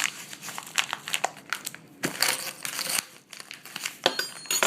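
Shipping package being peeled and torn open by hand, its packing crinkling and crackling in irregular bursts, with a longer tearing rustle about two seconds in.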